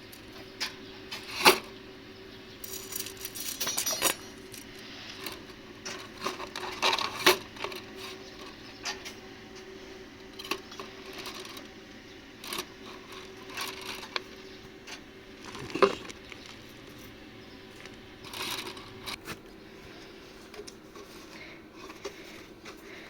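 Scattered metallic clinks and knocks of metal parts being handled, with a short rattle about three seconds in and the loudest knocks about a second and a half, seven seconds and sixteen seconds in, over a steady faint hum.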